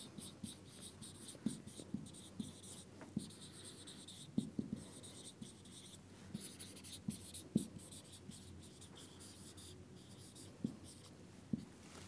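Marker writing on a whiteboard: scratchy, squeaky strokes in short runs, with light taps as the tip touches down between words.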